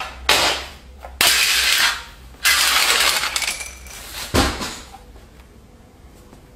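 Small hard objects clattering and rattling in several bursts, then a sharper thud about four and a half seconds in.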